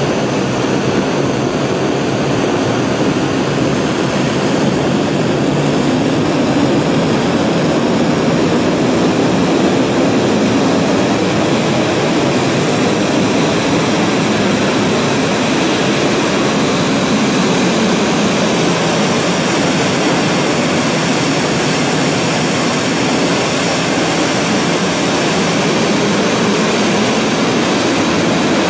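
Steady roar of a 7-ton-class liquid-propellant rocket engine for the third stage of Korea's launch vehicle, firing continuously during a long-duration static test.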